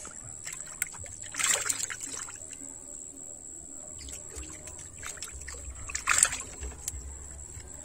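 Two short bursts of splashing, dribbling water, about a second and a half in and again near the end, among small handling clicks and a steady high whine.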